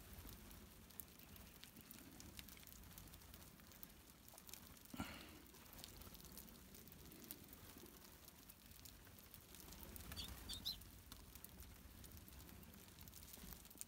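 Faint sounds of a feeding flock of gray-crowned rosy finches: scattered light ticks, and a few short high chirps about ten seconds in.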